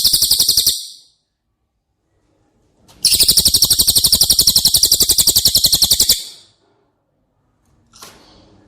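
A songbird's rapid, high-pitched rattling trill, about a dozen notes a second, sung as a burst that ends within the first second and a second, longer burst from about three to six seconds in; a faint sound starts near the end.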